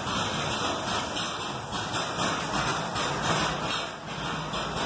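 Air-operated diaphragm pump running on compressed air, its exhaust hissing continuously and pulsing in an even rhythm with each stroke.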